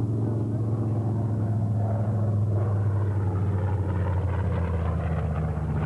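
Grumman TBM Avenger's 14-cylinder Wright R-2600 radial engine droning steadily as the slow plane flies past, its pitch dropping slightly about four seconds in.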